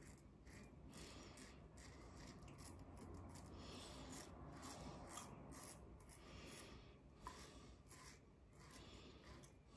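Faint scraping of an Edwin Jagger 3one6 stainless-steel safety razor with a Tatara blade, cutting through lathered stubble in short, repeated strokes against the grain.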